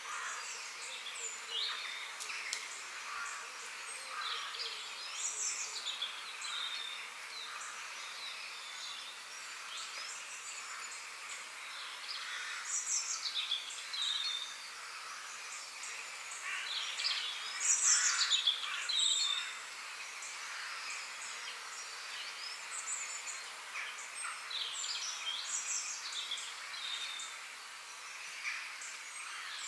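Forest ambience with many birds calling over one another: short chirps and quick falling whistles over a steady background hiss, with louder bursts of calls about halfway through.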